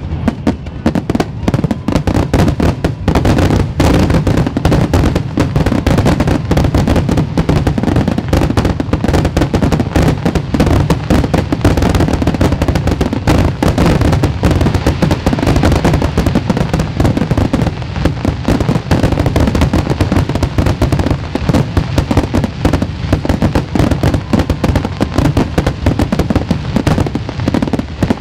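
A continuous barrage of aerial fireworks: shells bursting in rapid, overlapping succession with sharp cracks over a deep rumble, with no gaps between reports.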